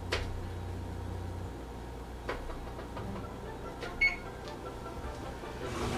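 Electric range's keypad being pressed to set the oven timer: a few soft button clicks and one short, high electronic beep about four seconds in.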